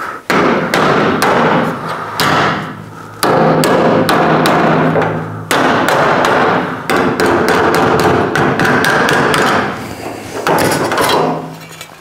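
Hammer tapping a sheet-steel repair patch, shaping it by hand to the curve of a car's rear window frame. A long run of sharp metallic blows, about two a second, with steady ringing tones between them and a couple of short pauses.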